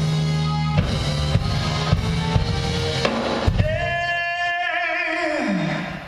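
Live soul-pop band with drum kit, keyboards and saxophones playing, the drums beating about twice a second. A little past halfway it settles on a long held final chord, which bends down and fades out near the end.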